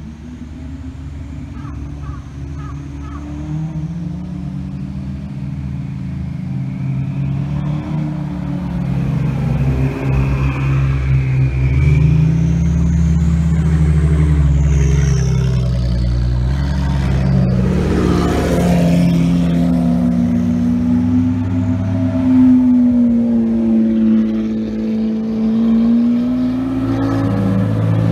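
Several supercars driving slowly past one after another, their engine notes overlapping and rising and falling, growing louder over the first dozen seconds as they approach. Among them are a Liberty Walk-bodied second-generation Honda NSX with its twin-turbo V6 and a first-generation NSX.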